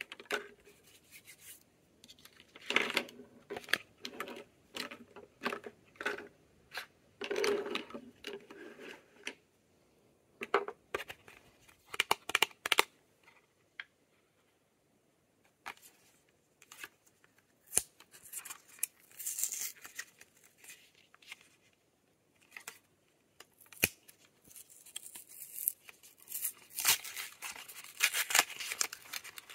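Lip balm packaging being unwrapped by hand: irregular crinkling, tearing and sharp clicks, in bursts with short pauses. Busiest at first and again near the end, with a sparser stretch in the middle.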